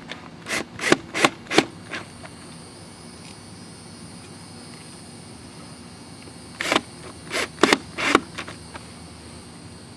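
Cordless drill-driver pulsed in short bursts, driving screws into a trim tab mounting plate on a boat's transom until they sit snug. There are about four quick bursts, a pause of several seconds, then another four.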